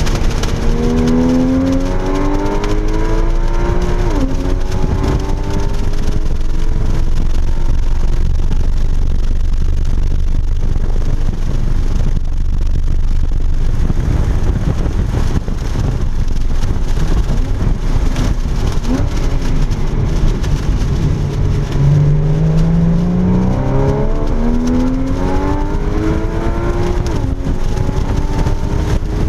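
Porsche Cayman GTS flat-six heard from inside the cabin under hard acceleration. The engine note climbs and drops at an upshift about four seconds in, runs steadier through the middle, then climbs again with further upshifts near the end. Plastic bags wrapped over the seats rustle and flap.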